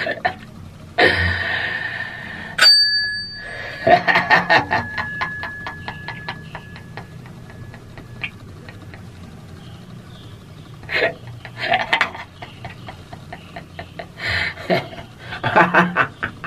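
A single bright, bell-like metallic ring, struck sharply about three seconds in and dying away slowly over about five seconds, with a man laughing over it. Short loud vocal outbursts come near the end.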